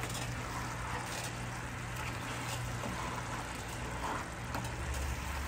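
Glaze boiling hard in a skillet and being stirred with a spatula, a steady bubbling hiss with a low steady hum underneath.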